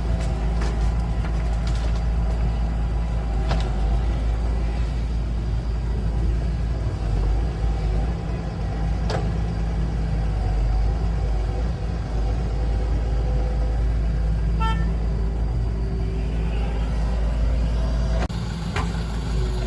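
Heavy diesel machinery running steadily with a deep rumble, a few sharp knocks over it. A short beep about fifteen seconds in.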